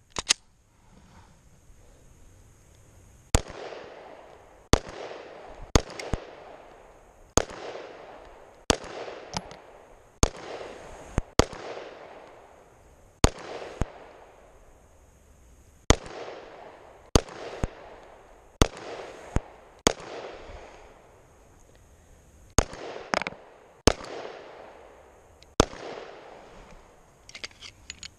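Glock 19 9mm pistol firing about twenty single shots at an unhurried, uneven pace, roughly one a second, each shot followed by a short echo. The firing begins a few seconds in and stops a couple of seconds before the end, where a few faint clicks follow.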